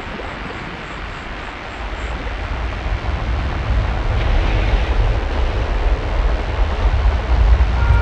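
Experimental techno: a dense, even noise texture with a deep bass rumble that swells in about two and a half seconds in and keeps getting louder.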